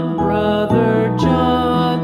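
Background music: a gentle children's tune with notes changing about twice a second.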